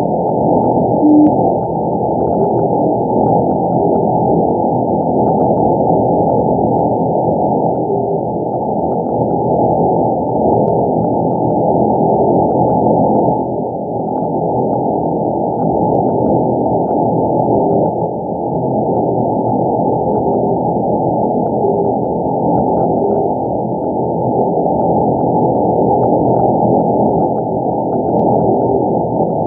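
Shortwave receiver in CW mode on 6231 kHz: steady band hiss and static crackle with faint short beeps every second or few, the PIP signal weakly received. The beeps step up slightly in pitch after the first few seconds as the receiver is retuned 100 Hz.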